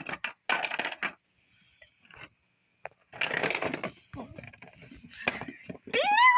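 Hard plastic toy pieces clattering and clicking as they are handled and set into a toy house, with rustling from handling. Near the end a high-pitched squeal rises and then holds.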